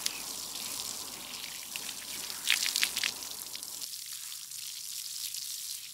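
Steady low hiss of background noise, with a few short, soft hissing sounds around the middle. The low hum beneath it cuts out about four seconds in.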